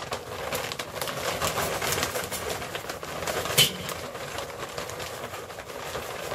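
Charcoal briquettes pouring from a sack into a metal chimney starter: a continuous clatter of small knocks and rattles, with one sharper, louder clack about three and a half seconds in.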